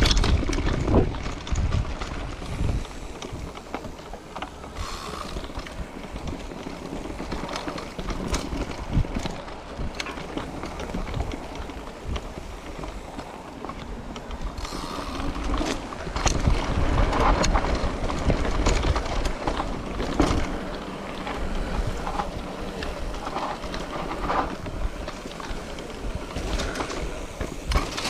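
Wind buffeting the microphone during a bicycle ride, with a low rolling rumble and scattered knocks and rattles from the bike over rough ground; the rumble swells about 16 to 20 seconds in.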